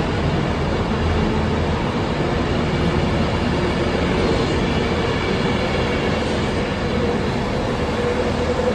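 Class 390 Pendolino electric train pulling away from the platform: a steady loud rumble of wheels and running gear with a faint traction-motor whine that rises in pitch near the end as it gathers speed.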